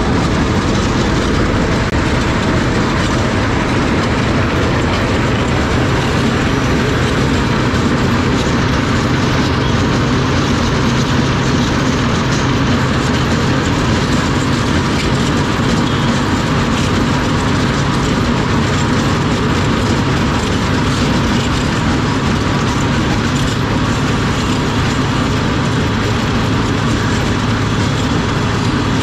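A 1 m asphalt cold milling machine working: its diesel engine runs under load and the cutting drum grinds off the road surface. The result is a loud, unbroken grinding and clattering noise.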